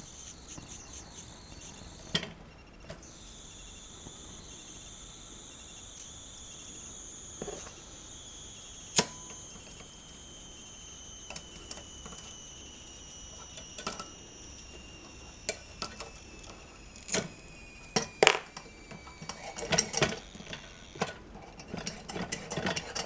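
Butterfly 828 kerosene pressure lantern burning with a thin, high whistle that slowly falls in pitch. Sharp metallic clicks and taps come from hands on the lantern, more often near the end.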